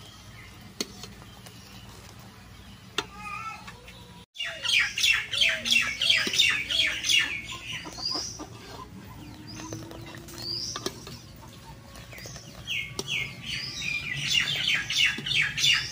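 Birds chirping in quick runs of short, high notes, starting about four seconds in and again near the end.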